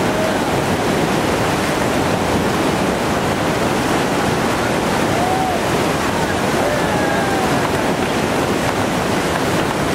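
Steady rushing of a big whitewater rapid running at high water, about 4,700 cubic feet per second, with faint shouts from people in the background a little past the middle.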